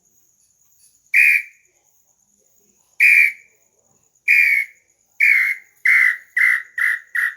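A hand-made bird-call whistle (pio) blown in a series of short whistled notes. The notes are widely spaced at first, then come faster and faster until there are about two a second near the end.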